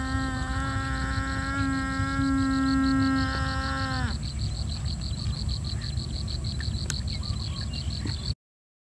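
Animal-like background sounds laid over the video: a long, steady low call lasting about four seconds, over a fast run of high chirps about five a second, with a low rumble underneath. All sound cuts out suddenly near the end.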